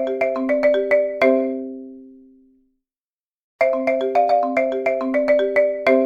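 Timer alarm ringtone in a marimba sound: a quick run of about a dozen bright mallet notes ending on a low note that rings out and fades. After about a second of silence the same phrase starts over.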